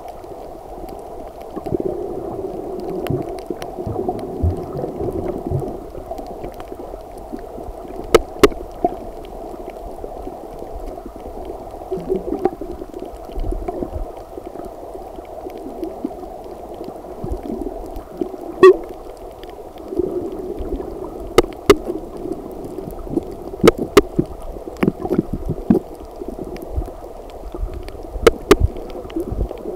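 Underwater ambience picked up by a camera on a coral reef: a muffled, wavering water rumble with scattered sharp clicks and cracks, louder ones several times.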